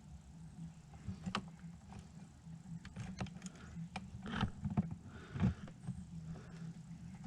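Scattered light clicks and a few louder knocks from hands working on snowmobile carburettor linkage and cables, over a steady low hum.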